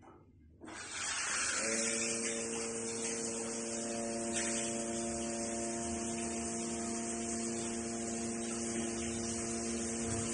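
Water spraying from a rain shower head. About a second later the steady hum of the Joven water heater's built-in DC inverter turbo pump joins it.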